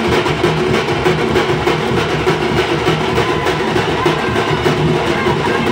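A troupe of parai frame drums beaten with sticks, playing a loud, fast, dense rhythm without a break.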